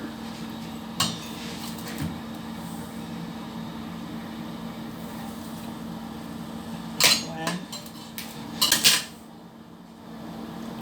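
A measuring cup knocking and clinking against a cooking pot as sugar is scooped and tipped into water. There are single sharp knocks about one and two seconds in, and louder clusters of clanks near the end, over a steady low hum.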